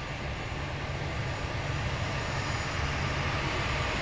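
Boeing 737-300's CFM56-3 turbofan engines at taxi power: a steady jet rumble and hiss that grows gradually louder as the airliner taxis closer.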